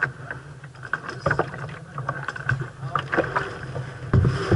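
Water slapping and splashing against a 470 sailing dinghy's hull as it sails through waves: irregular knocks and splashes over a steady rush, with the loudest splash near the end.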